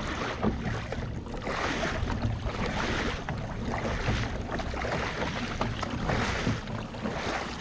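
Wind buffeting the microphone and sea water sloshing against the side of a kayak, rising and falling in swells.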